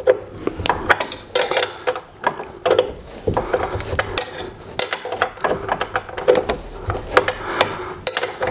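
Small stamped steel wrench turning a nut onto a bolt in short strokes, clinking and tapping against the metal: a string of irregular metallic clicks as the TV is tightened onto the wall-mount bracket.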